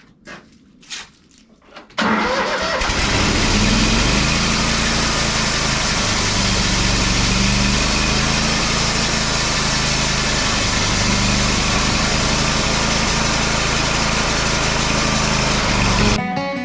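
Wood-Mizer band sawmill's engine comes on abruptly about two seconds in and runs steadily, with a high hiss over its low drone.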